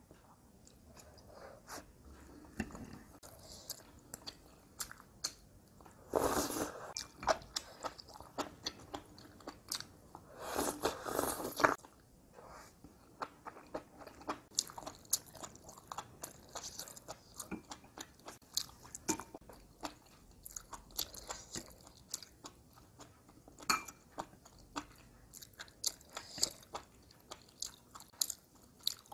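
A person chewing enoki mushrooms and rice: a steady run of small wet chewing clicks, with two louder stretches of mouth noise lasting about a second each.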